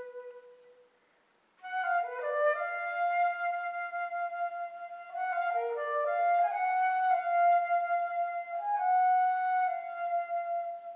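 Solo concert flute playing unaccompanied: a held low note dies away, and after a short pause a new phrase begins with quick rising note flourishes between long sustained notes.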